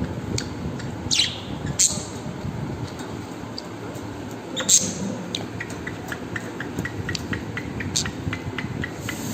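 Pet bird giving a few short, sharp chirps that fall in pitch, followed by a run of quick, even ticks about four a second in the second half.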